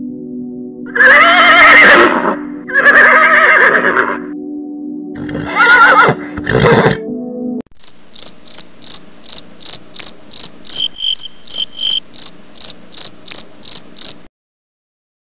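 A horse neighing three times, long whinnies over a steady low hum. Then insect chirping in an even rhythm, about three sharp, high chirps a second, stopping about a second before the end.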